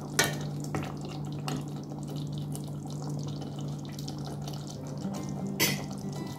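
Mutton curry simmering in a pot on a hot plate: soft bubbling with a few sharp pops, the loudest near the end, over a steady low hum.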